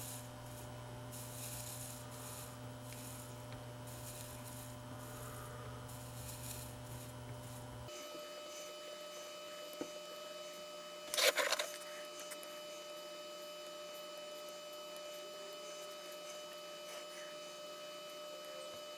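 Faint steady electrical mains hum with a thin electronic whine. The low hum cuts off suddenly about eight seconds in. A single brief scrape comes about three seconds later.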